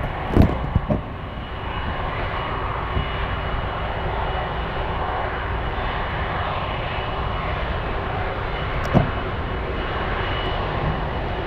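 Airbus A330 KC2 Voyager's twin Rolls-Royce Trent 700 turbofans running at taxi power: a steady jet rumble and hiss with a faint high whine. A few short knocks come in the first second, and one more about nine seconds in.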